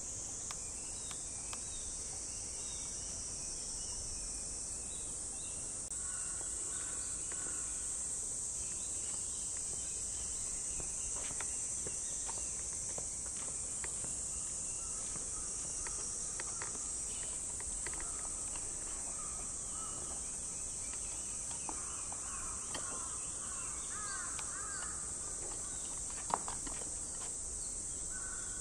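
Cicadas sounding in a steady, high-pitched summer chorus, with a lower tone joining about six seconds in. A few faint bird chirps come near the end, and there is a single sharp click shortly before it.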